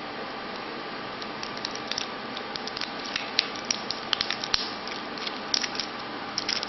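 Fingernails picking and scratching at the printed plastic wrapping on a plastic toy capsule while trying to peel it off, a run of irregular small crinkles and clicks starting about a second in, over a steady hiss.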